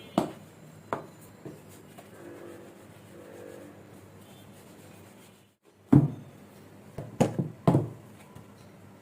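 Knocks and taps of kitchen utensils being handled: a few light taps in the first seconds, then a loud knock about six seconds in and a quick cluster of three knocks near the end.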